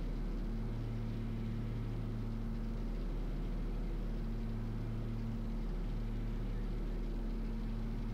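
Twin-engine Cessna 340A's Continental TSIO-520 piston engines and propellers droning steadily on final approach, heard inside the cabin.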